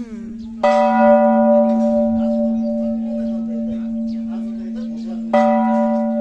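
Large hanging temple bell struck twice, about five seconds apart. Each strike rings on with several steady tones over the bell's deep, unbroken hum.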